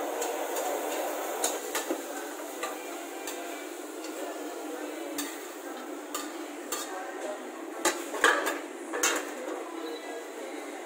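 Metal ladle clanking and scraping against a wok as noodles are stir-fried, over a steady background rush of kitchen noise. The sharpest clanks come about eight and nine seconds in.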